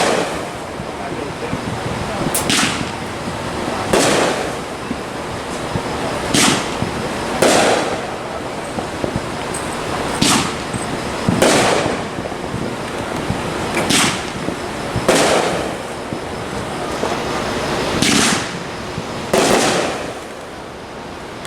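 Fireworks going off in a series of sharp bangs, about a dozen, often in pairs a second or so apart, over a steady background hiss.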